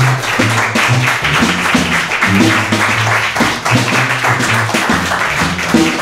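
Closing music from a live band, a bass line stepping from note to note under plucked strings, with audience applause.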